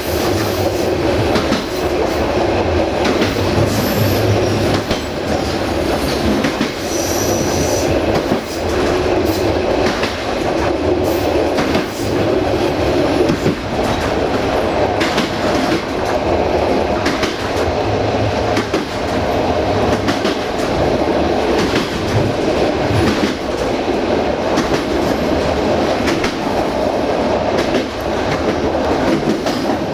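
Passenger train coaches rolling along the track, the wheels clattering steadily over the rail joints, with a brief high wheel squeal about seven seconds in.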